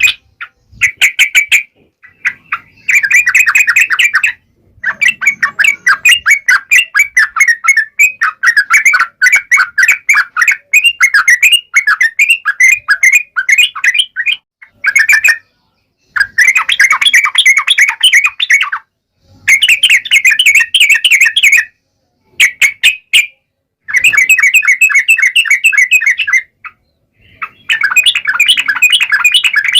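Yellow-vented bulbul (trucuk) singing loudly in bouts of fast, bubbly chattering notes, about ten notes a second, with a long run of song in the first half and shorter bursts later, each bout broken off by a sudden gap.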